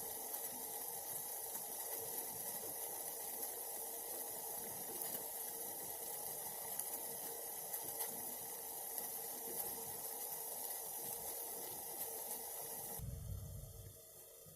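Hot water making a steady watery hiss that starts abruptly and cuts off about thirteen seconds in, followed by a brief low rumble.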